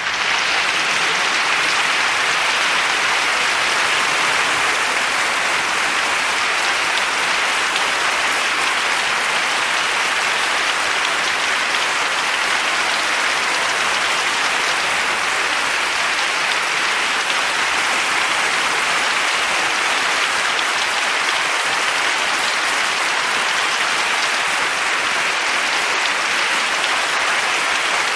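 Crowd applause: many people clapping steadily and densely, with no cheering or music, keeping an even level throughout.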